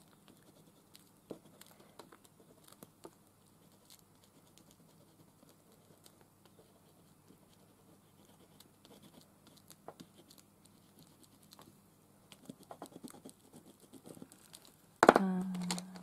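Faint scratching of a chunky Stabilo Woody crayon-pencil scribbling on paper, with small irregular taps and scrapes as the stroke changes. Near the end there is a sharp knock and a brief hum of voice.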